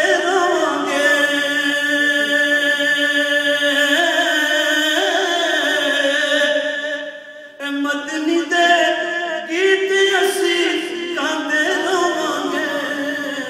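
A man reciting a naat in a melodic chant, unaccompanied, with long held notes and a brief pause about seven and a half seconds in.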